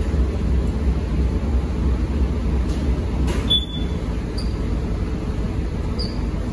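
Star Ferry's engine running steadily on board, a low drone. A short click with a brief high tone about halfway through.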